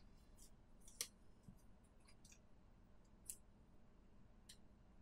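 Near silence with a few faint, sharp clicks from fingers handling a small plastic toy bracelet and a sticker.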